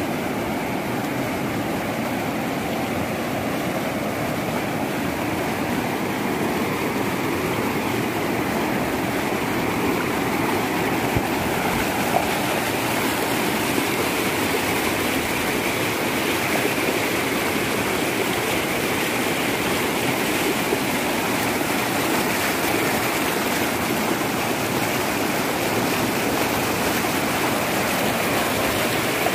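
Steady rushing of a muddy flood torrent and debris flow pouring down a hillside, a dense churning water noise, with a couple of brief knocks near the middle.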